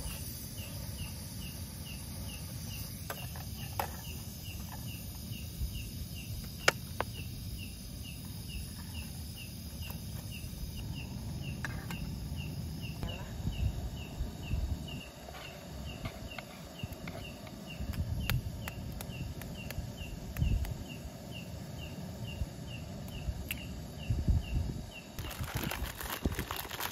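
An insect, cricket-like, chirping steadily in an even rhythm of about two to three short chirps a second, over low rumbling and rustling noise with a few sharp clicks.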